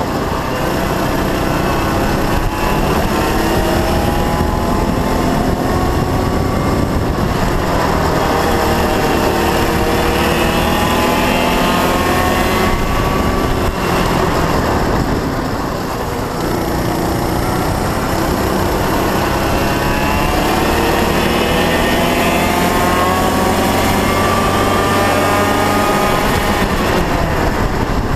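Honda Cadet go-kart's four-stroke engine running flat out, heard onboard. Its pitch climbs steadily along the straights and drops back as the kart slows for corners, about halfway through and again near the end.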